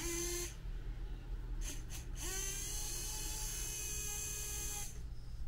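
Rebuilt 1974 VW Beetle two-speed wiper motor run on a bench power supply. It whines briefly at first, then about two seconds in spins up with a rising whine and runs steadily for nearly three seconds before cutting off. Only one of its two speeds works, because one of the brushes has not slid into position.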